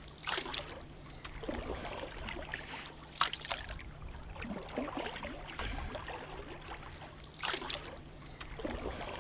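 Canoe paddle strokes: the blade dips and pulls through the water every second or so, each stroke a short splashing swish with trickling drips between.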